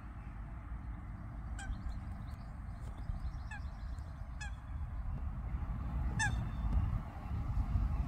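A goose honking four times, short calls a second or two apart, over a steady low rumble, with faint small-bird chirps in between.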